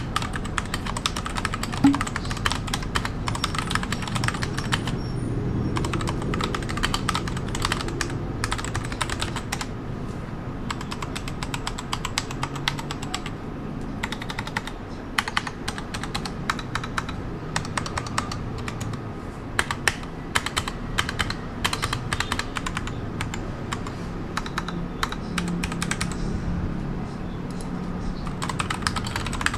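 Typing on a stock mechanical keyboard: a dense, continuous run of key clacks, thinning briefly near the end.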